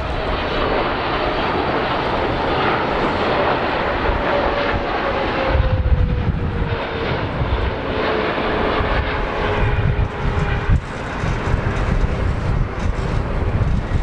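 Boeing 777-300ER's GE90 turbofan engines on landing approach: a steady jet roar with a whine that slowly falls in pitch as the airliner passes. A gusty low rumble joins in about halfway through.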